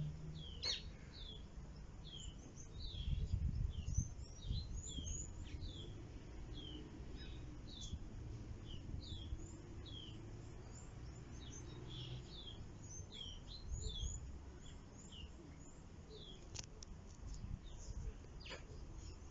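Small birds chirping over and over in the background: many short, high chirps that slide down in pitch, a few every second. Underneath runs a low rumble, louder about three seconds in.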